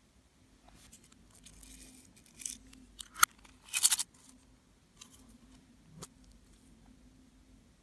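Slime being worked by hands, with scattered sticky crackles and small pops. A sharp pop comes about three seconds in, followed by a short burst of dense crackling.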